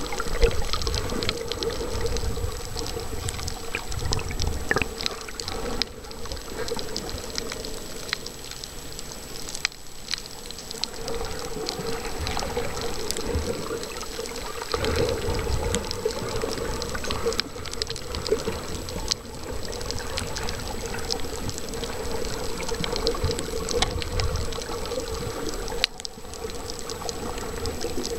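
Water noise picked up by a camera held underwater while snorkelling over a coral reef: a continuous rushing, sloshing sound of water moving over the camera, with scattered sharp clicks and crackles and a steady hum underneath.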